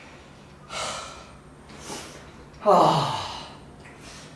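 A man's breathy exhale about a second in, then a voiced sigh that falls in pitch about three seconds in: the sound of effort while throwing a tall clay vase on a pottery wheel. A faint steady low hum runs underneath.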